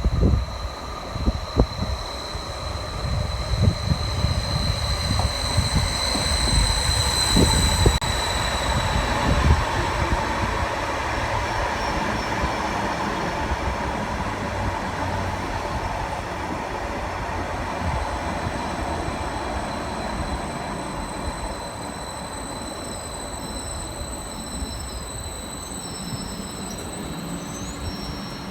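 Train running through the station with a rumble and a high steady squeal that is strongest about six to eight seconds in. The sound then slowly fades as the train draws away.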